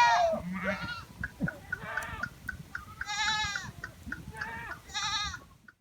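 Flock of sheep and goats bleating, several wavering calls one after another, the loudest fading just as the stretch begins and others coming around the middle and near the end.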